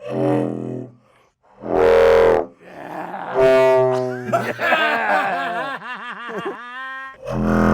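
Large homemade war horn blown in loud, deep, brass-like blasts. After two short blasts it holds notes that slide and wobble up and down in pitch, then gives another blast near the end.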